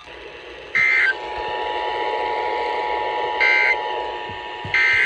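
Emergency Alert System tones from a radio broadcast. Three short, shrill bursts of EAS digital data tones come about a second in and twice near the end, over the steady two-note EAS attention signal.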